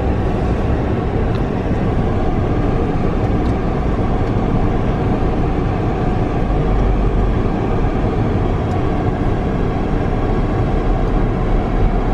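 A car driving along, with steady engine and road noise heard from inside the cabin.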